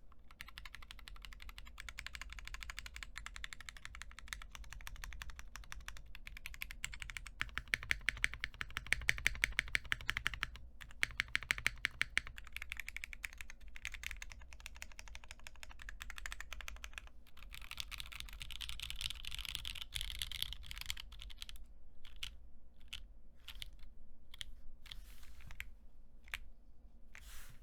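Mechanical keyboard with stock Jwick Black linear switches, an aluminium half plate and JTK keycaps being typed on fast and continuously, with a few louder key strikes in the middle. It slows to separate single key presses over the last few seconds.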